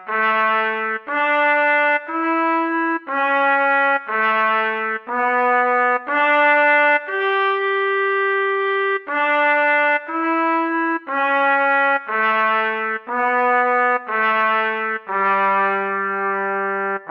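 Theme tune music: a slow solo melody on a brass-like instrument, one note roughly every second, with longer held notes in the middle and at the end.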